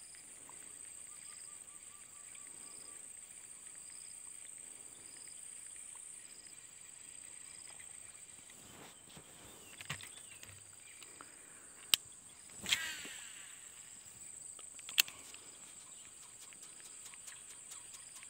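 Steady high-pitched insect drone with a faint chirp repeating about once a second. About two-thirds of the way in come a few sharp clicks and a short swish.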